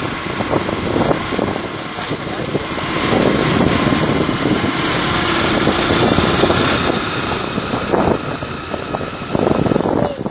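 Wind buffeting the microphone of a moving motorcycle, with the bike's engine running steadily underneath.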